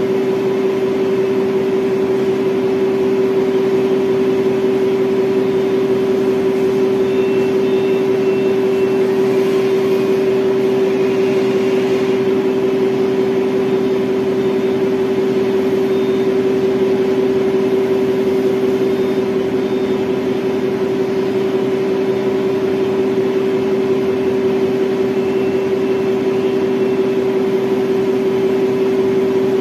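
Electric reach truck's hydraulic pump motor running with a steady, unchanging hum as the mast lifts a loaded pallet.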